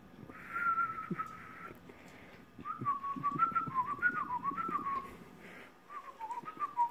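A person whistling to a dog in three short phrases, the pitch wavering up and down in small steps like a little tune.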